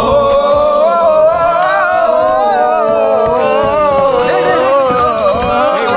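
Singing: a voice holding one long, wavering melodic line without a break.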